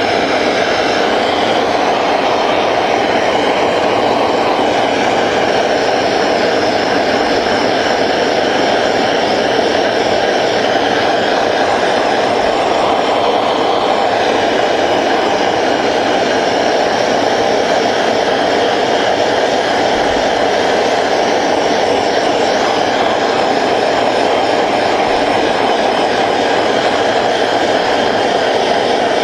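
Hand-held gas torch burning steadily, its flame played on a copper boiler to heat the joint for silver-soldering the filler bushing.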